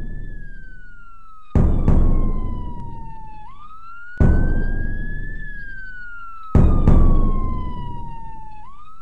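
A wailing siren whose pitch slides slowly down and then quickly back up, twice, under five deep booming hits that are the loudest sound.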